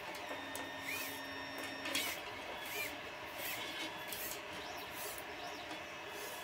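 Rubber GT2 timing belt being pulled and fed through a 3D printer's coreXY frame, giving soft, intermittent rubbing and sliding sounds with a few short chirps.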